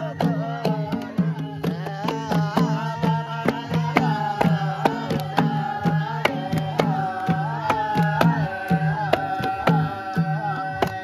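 Voices singing a Nepali salaijo folk song in long held lines, over a hand-beaten frame drum keeping a steady beat of about three strokes a second.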